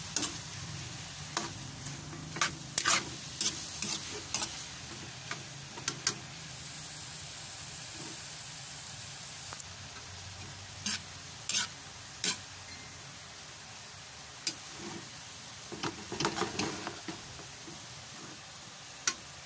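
Pancit bato noodles and chicken being stir-fried in a pan: a steady sizzle with scattered scrapes and clicks of the spatula against the pan, coming in bunches as she tosses the noodles.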